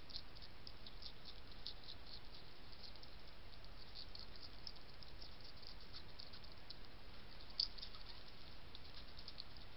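European hedgehog crunching dry cat kibble: a quick, irregular run of small crunchy clicks, with one louder crunch near the end, over a steady faint hiss.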